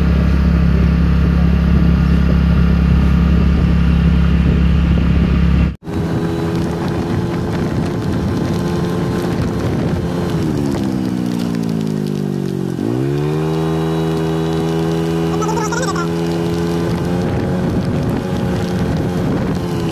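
Vehicle engine heard from on board while driving, running steadily. After a sudden cut about six seconds in, its pitch falls as the vehicle slows, then rises quickly near the middle as it accelerates again and settles to a steady run.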